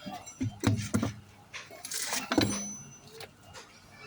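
Metal tools and parts being handled: a few sharp clinks and knocks, with a short scraping rustle about two seconds in.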